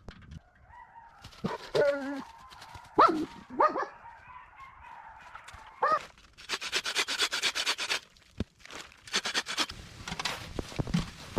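A dog whining and yelping in short, bending cries, several times in the first six seconds. After that comes a run of quick rasping strokes.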